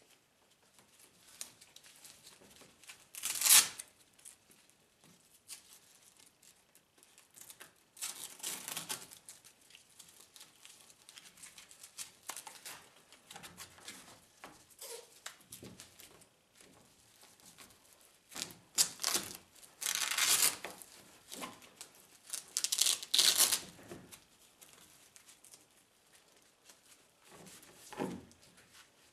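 Hook-and-loop (Velcro) straps of a fabric grab handle being ripped apart and pressed together around a roll-cage bar: several short tearing bursts, the loudest a few seconds in, with quieter fabric rustling between.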